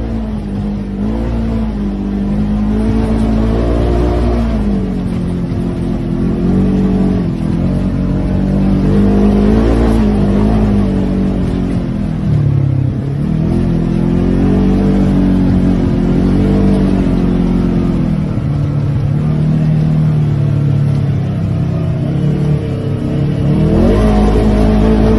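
Polaris RZR 1000 side-by-side's twin-cylinder engine running under load while driven over snow, its pitch repeatedly rising and falling with the throttle. It drops off sharply about halfway through, runs lower and steadier for a few seconds, then revs up again near the end.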